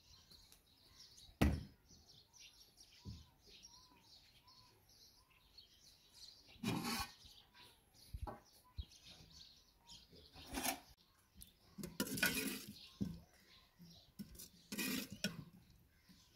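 Small birds chirping steadily, broken several times by sharp clanks of metal cooking pots and a ladle being handled at a clay stove.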